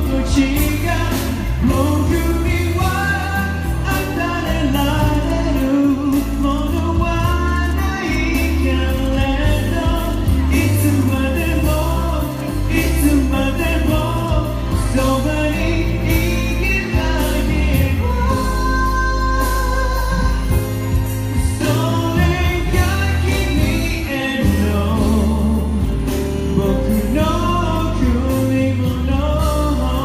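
A man singing a song live into a microphone over backing music, amplified through the stage speakers.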